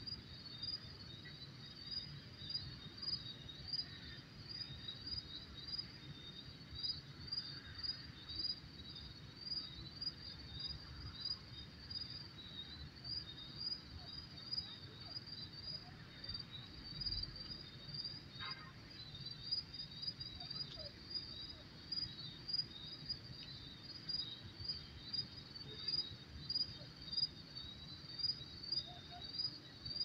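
Crickets chirping steadily, a high chirp repeating about two to three times a second, over a low background rumble.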